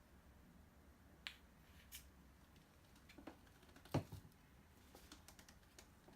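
A few scattered light clicks and taps from small objects being handled, the loudest about four seconds in, over a quiet room.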